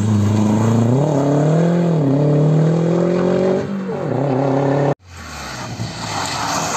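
Rally car engine revving hard as it accelerates through the gears, its pitch climbing and dropping at each shift. After an abrupt cut about five seconds in, another rally car passes with a rougher, noisier engine sound.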